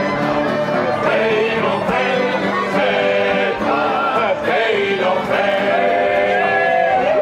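A group of men singing a song together, loud and steady, with instruments playing along underneath.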